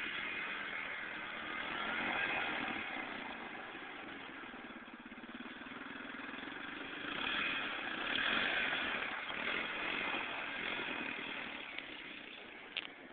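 Quad (ATV) engine running with the revs rising and falling as it slides in circles on ice, loudest about two seconds in and again around eight seconds.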